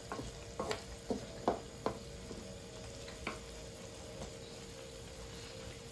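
A wooden spatula stirs chicken feet and livers simmering in adobo sauce in a wok: a cluster of knocks and clunks in the first two seconds and one more a little past three seconds in, over a faint simmering sizzle and a steady faint hum.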